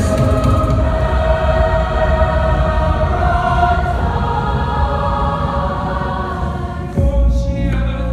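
Mixed high school choir singing held chords in harmony. About seven seconds in, the sound changes suddenly and the low end grows heavier.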